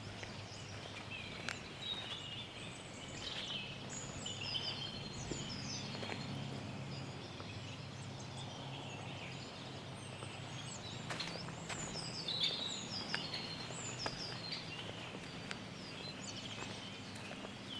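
A dense spring chorus of many songbirds singing at once, with overlapping chirps and trills throughout, and a few sharp clicks along the way.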